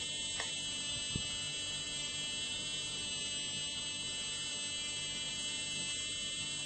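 Steady electrical whine made of many fixed high tones over a low hum, with a faint tap about a second in.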